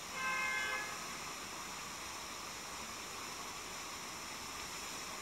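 Steady faint hiss of background noise, with one short pitched tone lasting under a second right at the start.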